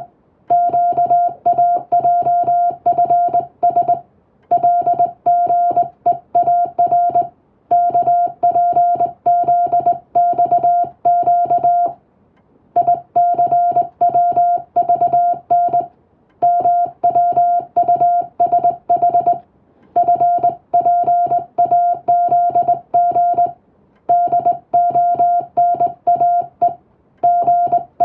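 Morse code sent as a single steady beep tone, keyed rapidly on and off into dots and dashes. It comes in runs of characters about three to four seconds long with short pauses between them, as in English-language practice text.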